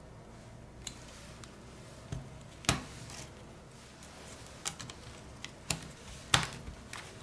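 Scattered light clicks and taps of a smartphone and small repair tools being handled on a work surface, with two sharper clicks, one a little before the middle and one near the end.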